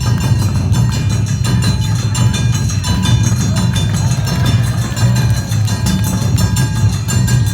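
Live Awa Odori festival music: taiko drums and a clanging kane gong keep a fast, steady beat, with higher melody lines held and wavering over the drumming.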